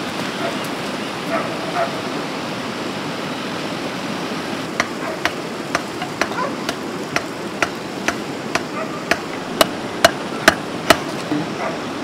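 Steady rain, with a run of sharp hammer knocks on timber starting about five seconds in. The knocks come about two a second and grow louder toward the end.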